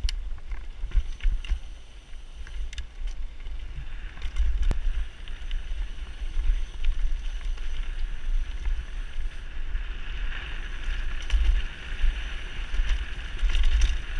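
Mountain bike riding a dirt singletrack, heard from a helmet-mounted camera: wind buffeting the microphone as a low rumble, tyres hissing and crunching over dirt and stones, and scattered sharp clicks and rattles as the bike goes over bumps.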